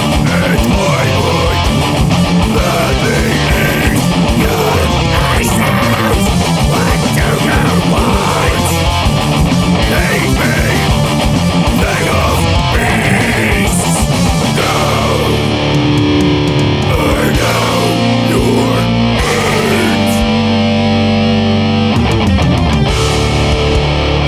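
Death metal music with heavy electric guitar, dense and fast at first; about halfway through it changes to held notes with sliding guitar lines.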